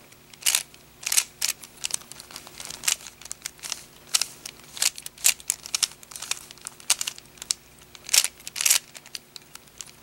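A 3x3 Rubik's cube being turned by hand: a run of irregular plastic clicks and clacks as its layers snap through the turns of the seven-move last-layer edge algorithm that finishes the solve.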